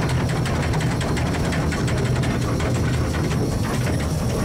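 Cab sound of Southern Railway S15 4-6-0 steam locomotive No. 847 on the move: a steady low rumble of the running engine and its wheels on the track.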